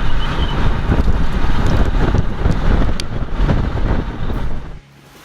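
Strong wind buffeting the microphone in a loud, rushing rumble that cuts off about four and a half seconds in.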